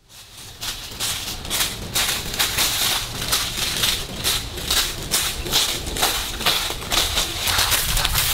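Footsteps crunching through dry fallen leaves, about two or three steps a second, fading in at the start.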